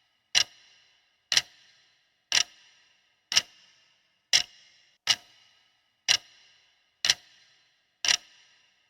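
Countdown timer ticking about once a second, nine sharp clock-like ticks each with a brief ringing tone, marking the time allowed to answer.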